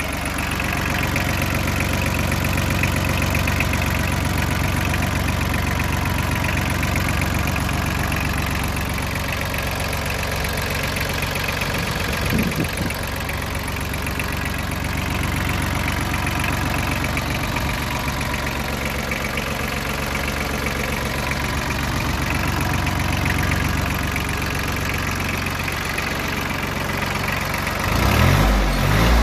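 Yanmar Ke-4 compact tractor's diesel engine idling steadily, heard close up in the open engine bay. Its pitch shifts briefly near the end.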